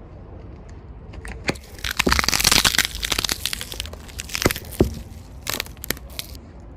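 Car tyre crushing a brittle object: a dense run of crackling and snapping about two seconds in, then scattered sharp cracks until near the end.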